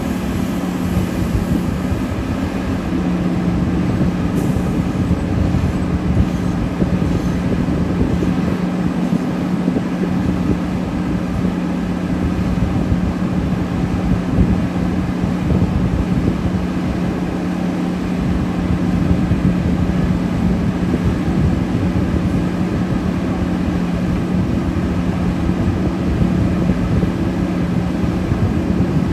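Heavy diesel mining machinery running steadily: a constant engine drone with a steady low hum that holds level throughout.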